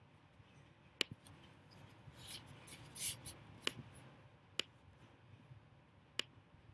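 A few sharp computer-mouse clicks, about four, spaced a second or more apart, with a soft rustling noise in the middle.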